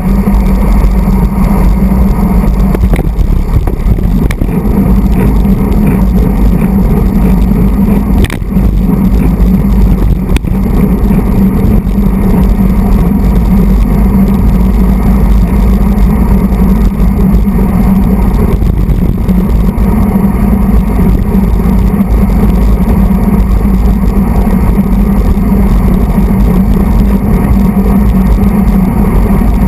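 Wind buffeting a handlebar-mounted camera's microphone on a road bike riding at race speed, with road vibration through the bars: a loud, steady low rumble.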